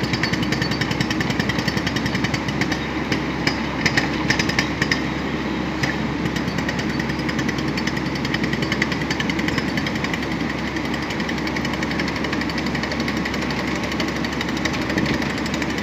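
Hydraulic highway guardrail pile driver hammering a guardrail post into the roadside: a rapid, steady stream of blows, with a few louder knocks in the first five seconds.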